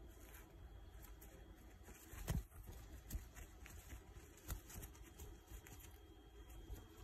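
Faint handling noise: a few soft taps and knocks as the bird is shifted about in the hand, the clearest about two seconds in, over a low steady hum.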